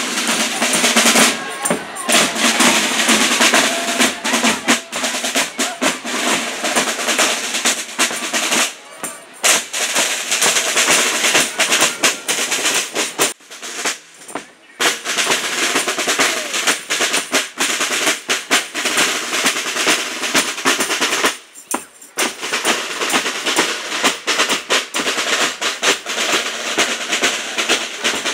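Marching street band: a snare drum playing fast rolls and beats, with brass horns, stopping briefly a few times.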